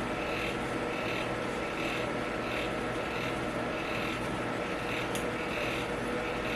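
Electric fan running with a steady whir and a soft, regular pulse a little faster than once a second.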